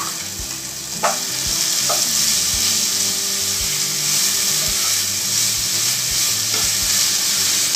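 Chopped onions sizzling as they go into hot ghee and oil and are stirred with a spatula: the sautéing stage of a curry masala. The sizzle swells about a second in and then holds steady, with a couple of light knocks of the spatula in the first two seconds.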